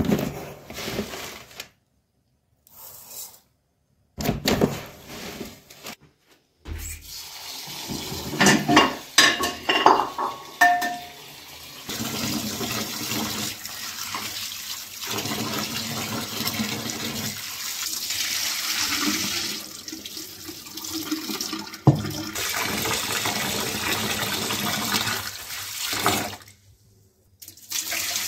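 Rice being rinsed by hand in a metal pot under a running tap: a steady rush of water with swishing, preceded in the first dozen seconds by several short metal knocks and rattles. Near the end the cloudy rinse water is poured off out of the pot.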